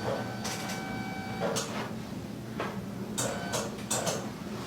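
Hands rubbing and pressing on the body and clothing during a chiropractic adjustment: a run of short swishing strokes, with a squeaky held tone near the start and again about three seconds in.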